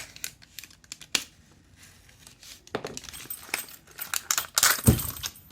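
Padlock packaging being torn open and crinkled by hand, with scattered clicks and louder rustling bursts in the second half.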